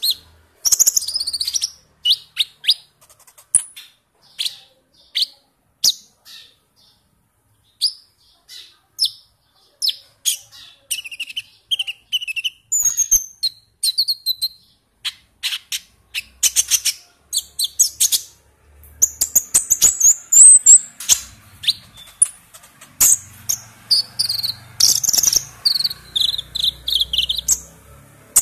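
Caged young sunbird singing high-pitched chirps and quick twittering trills, sparse at first and much busier in the second half.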